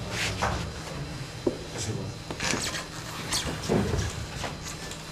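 Room noise of a small theatre café before a show: scattered short knocks and clatter over a steady low hum.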